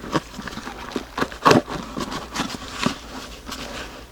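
Cardboard shipping box being opened by hand: irregular knocks, scrapes and rustles as the packing tape is picked at and pulled, the tape hard to get through. The loudest knock comes about a second and a half in.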